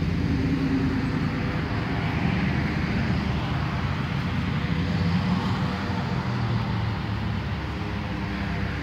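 Steady noise of road traffic and running vehicle engines, with a low, even hum underneath.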